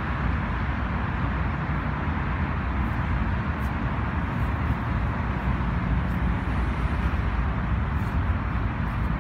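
Wind buffeting the microphone: a steady, fluttering low rumble with a rushing noise over it.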